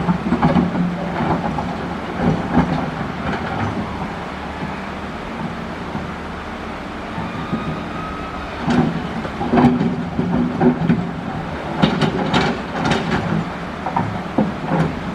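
Excavator diesel engine running steadily while its steel bucket scrapes and knocks against coral rock, with bursts of clattering near the start and again through the second half.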